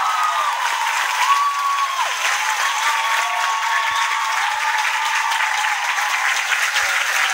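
Crowd applauding and cheering, with many high voices whooping and shouting over the clapping.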